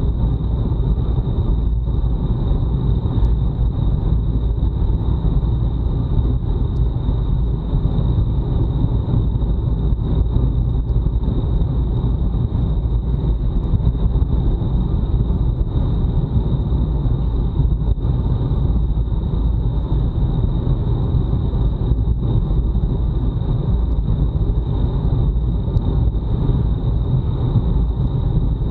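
Wind buffeting an action camera's microphone on a bicycle ridden hard at racing speed: a loud, steady low rumble with road noise, and a thin, steady high-pitched tone above it.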